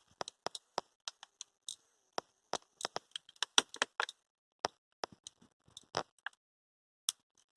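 A Takara pocket critter's tiny clockwork mechanism running after being wound: a quick, irregular series of small clicks and ticks that thins out near the end as the spring runs down.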